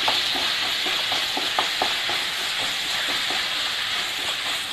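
Sliced onions and ginger-garlic-chilli paste sizzling steadily in hot oil in a non-stick kadai while a spatula stirs them, with light scraping ticks of the spatula against the pan.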